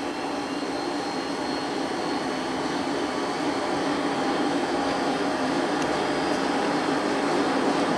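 Blacksmith's forge fire burning hard under a blast of air from the blower: a steady rushing noise, growing slightly louder.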